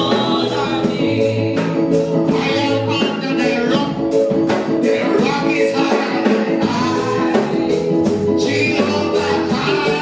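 Gospel worship singing by a group of women into microphones, over instrumental accompaniment with a steady beat.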